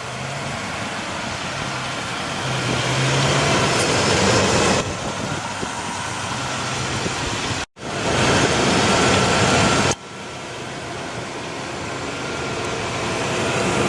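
7.4-liter Vortec big-block V8 (454) of a 1998 Chevrolet Silverado 3500 idling steadily, heard from the open engine bay. The sound jumps abruptly in level a few times where takes are spliced, with a brief dropout near the middle.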